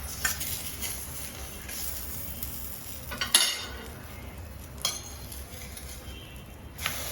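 A metal fork clinking and scraping against a frying pan as flapjack batter is shaped, over a light sizzle of the batter frying. There are a few sharp clinks, the loudest about three seconds in.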